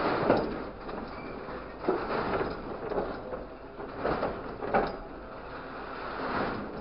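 Grapple truck's engine running steadily under a string of loud scraping and clanking noises, about six over several seconds, as the hydraulic crane works over an empty steel scrap container.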